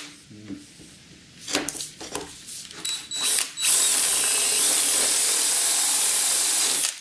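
Cordless drill boring into a wooden board with a Forstner bit. It runs in a few short bursts in the first half, then one steady run of about three seconds that stops just before the end.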